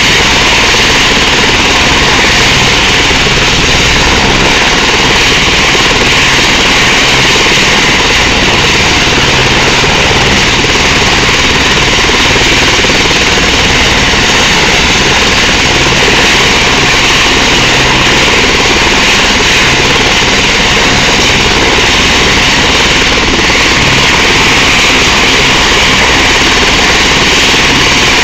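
Eurocopter AS350 Squirrel helicopter running on the ground with its main rotor turning: loud, steady turbine and rotor noise.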